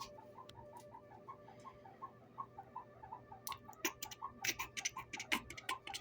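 Refrigerator making a rhythmic chirping beat of about three to four squeaky chirps a second. From a little past halfway, sharp irregular clicks join in over the beat.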